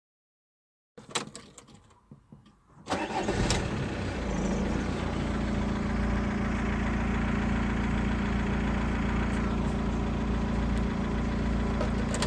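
A few clicks, then an Audi car engine starts about three seconds in and settles into a steady idle.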